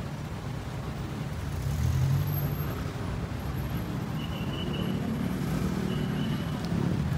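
Road traffic: a steady low engine rumble that swells as a vehicle passes about two seconds in, with two short high tones later on.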